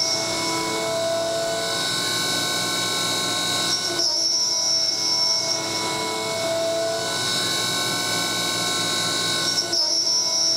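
CNC mill spindle, driven by an old BLDC motor, cutting 6061-T6 aluminium under flood coolant: a steady machining whine made of several held tones. The tone pattern shifts briefly about four seconds in and again near the end.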